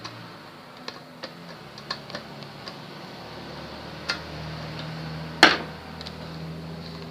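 Scattered light clicks and taps of parts being handled during CRT TV repair, with one sharp, much louder click about five and a half seconds in.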